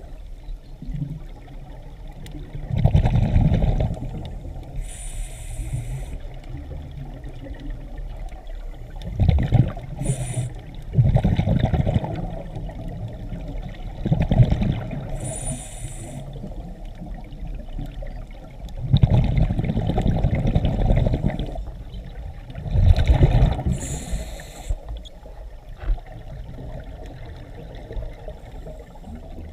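Scuba diver's regulator heard underwater: a short high hiss on some inhales, then a loud burst of exhaust bubbles on each exhale, about six breaths, a few seconds apart.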